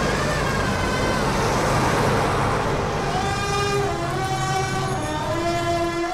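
A siren wailing over steady road-traffic rumble, with vehicle horns sounding.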